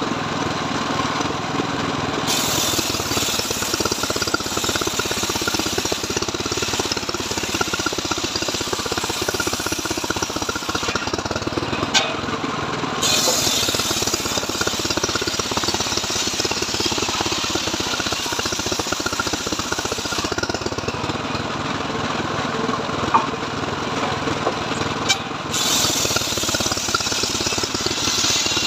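Home-built mobile circular sawmill running steadily while its large circular blade rips lengthwise through a mahogany log. The high cutting noise comes in long stretches and drops away briefly about 11 seconds in and again about 20 seconds in, as the log is fed through and a slab comes off.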